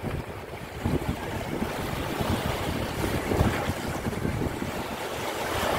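Small waves breaking and washing up over a sandy shore, with wind buffeting the microphone.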